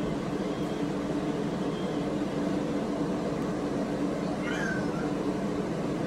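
Mini portable turbo washing machine running submerged in a plastic tub of water, giving a steady motor hum. About four and a half seconds in, a cat meows once, briefly.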